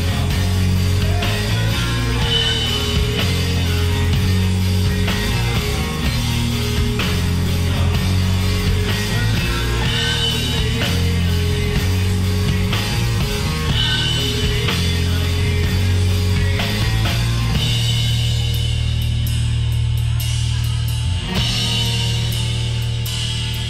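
Live rock band playing: a drum kit with cymbals over a bass guitar line and electric guitar. The cymbal strikes come thicker and brighter over the last few seconds.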